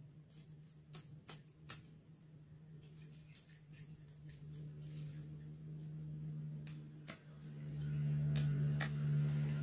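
Sparse sharp clicks and snaps of a machete cutting at the stalk of a salak fruit bunch on the palm. Under them a steady low hum grows louder over the last few seconds.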